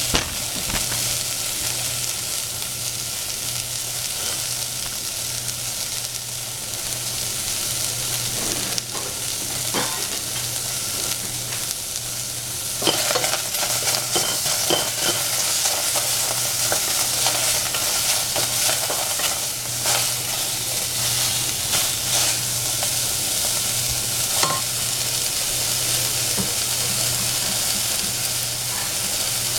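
Strips of capsicum frying and sizzling in a stainless steel saucepan with a steady hiss. A wooden spatula stirs them, scraping and knocking against the pan now and then, and more often from about halfway through.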